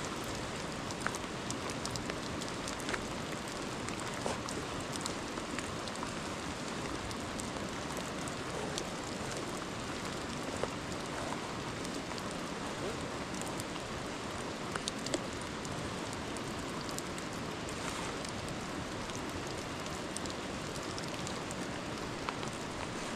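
Steady rain falling, a continuous hiss with scattered drips and small ticks, a few sharper ones standing out.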